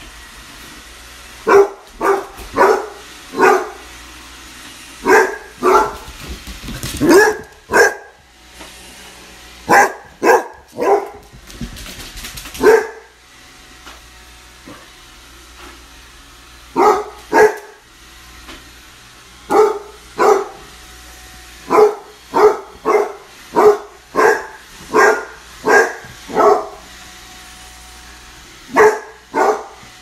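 Basset hound puppy barking over and over, short sharp barks in runs of two to four with pauses between.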